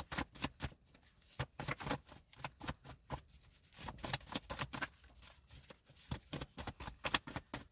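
Cards being shuffled and handled, a quick irregular run of flicking and snapping clicks.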